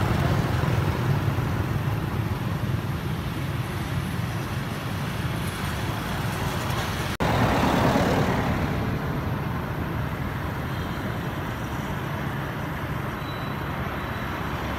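Road traffic: motorbikes and cars passing on the road, a steady low engine hum. The sound breaks off for an instant about halfway through, then swells as a vehicle goes by.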